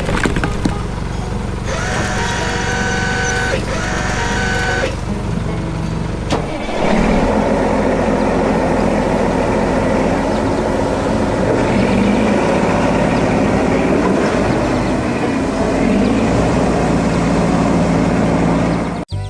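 Heavy vehicle engine running loud and steady, rougher and denser from about six seconds in. Sustained tones lie over it in the first few seconds.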